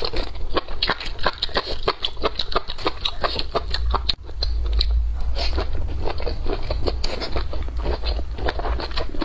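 Close-miked chewing of crunchy food: a rapid run of crisp crunches and bites, about three or four a second, with a brief break about four seconds in.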